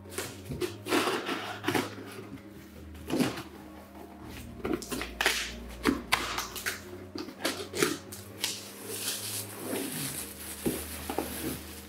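Cardboard parcel being torn open by hand: packing tape ripping and cardboard flaps rustling and knocking in quick irregular strokes, then a plastic bag crinkling near the end.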